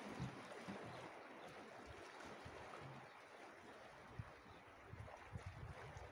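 Faint, steady wash of a calm sea, with low wind thumps on the microphone now and then, more of them in the second half.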